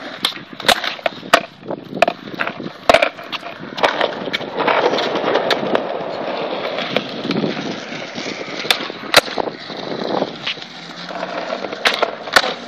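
Skateboard wheels rolling over paving stones, with a run of sharp clacks from the board being popped and landed in flatground flip tricks, several coming in pairs about half a second apart.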